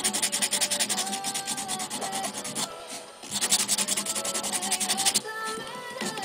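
A grinding stone rubbed in rapid back-and-forth strokes over the jinoko lacquer ground on a bamboo spoon's bowl, a dry gritty scraping that eases briefly about three seconds in.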